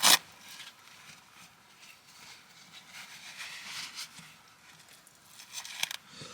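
A sharp knock, then rustling and crinkling as things are handled in the cramped truck-bed camper, with a few small clicks near the end.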